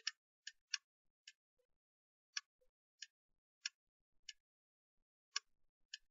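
Computer mouse clicking about a dozen times at an uneven pace: single sharp clicks with silence between them.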